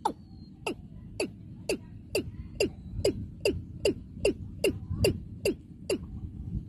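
Male watercock (cúm núm) calling: a series of about fourteen short notes, each falling steeply in pitch, that come faster and faster and stop about six seconds in.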